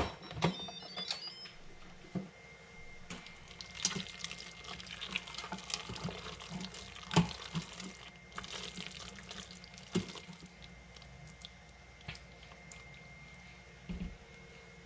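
A click as the slow cooker's lid is opened. Then a spatula stirs thick, wet macaroni and cheese in the stainless-steel pot, making irregular sticky, wet stirring sounds with small clicks against the metal.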